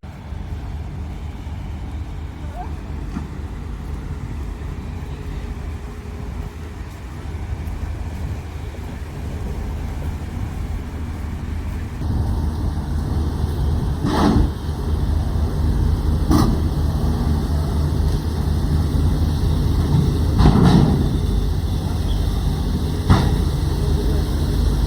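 Steady low engine rumble of a vehicle in motion, with four short knocks in the second half.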